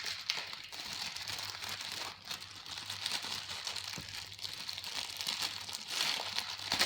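Plastic packaging wrap and sellotape crinkling and tearing as they are pulled off by hand, a busy patter of small crackles.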